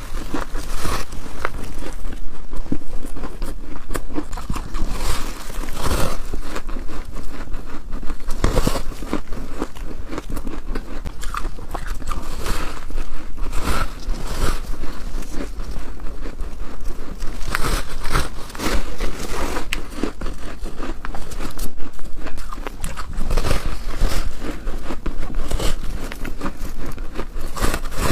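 Close-miked bites into soft frozen ice, each a crisp crunch, repeated about once a second or faster with chewing crunches in between.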